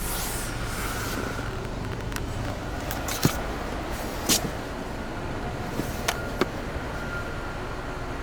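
Steady background noise with a faint thin tone, broken by a handful of short sharp clicks or knocks, the loudest about three seconds in.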